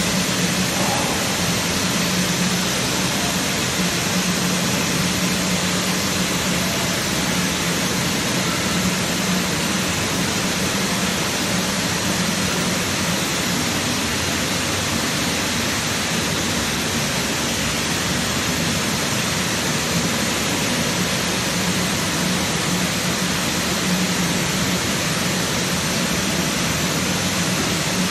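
Running workshop machinery: a steady hiss with a low hum underneath, unchanging throughout.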